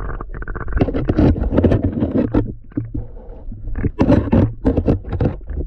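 Muffled underwater noise picked up by a submerged camera: a steady low rumble, with two spells of quick clicks, knocks and rushing bursts, about a second in and again about four seconds in, as the diver moves among the rocks.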